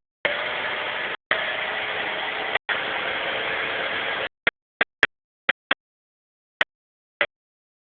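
Maserati engine idling, the rough idle that the owner finds once it is at operating temperature. The sound is steady for about four seconds, then cuts in and out abruptly in brief snatches.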